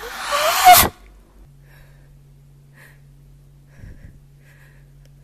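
A person's loud, breathy vocal outburst lasting about a second, with a rising pitch, cut off abruptly. After it, only a faint steady hum.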